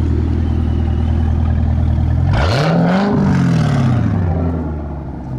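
An engine idles steadily. About two seconds in, another car engine revs up sharply and then winds back down over a couple of seconds.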